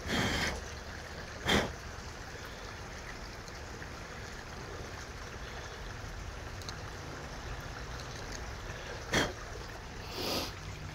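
Steady rushing of a shallow rocky creek, with four short noises from close by: one right at the start, one about a second and a half in, and two near the end.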